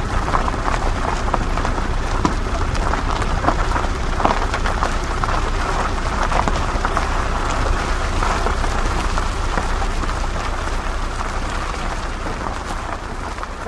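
Off-road 4x4 vehicle driving over rough ground: a steady low rumble under dense crackling and clattering, fading out near the end.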